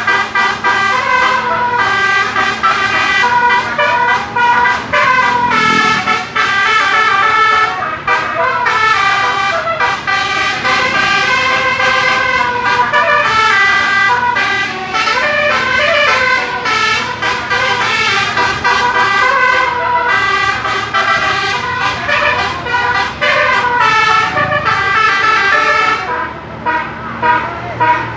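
A bus's 18-note telolet musical horn played continuously, running through one melody after another as loud multi-tone notes that change every fraction of a second, with a slightly quieter stretch near the end.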